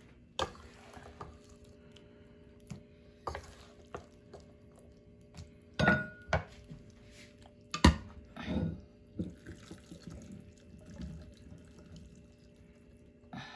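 Wooden spoon scraping and knocking against a pot and a ceramic bowl while cooked string beans in sauce are scooped and tipped from the pot into the bowl. A string of irregular clatters, the loudest two knocks about six and eight seconds in, with soft wet slides of food.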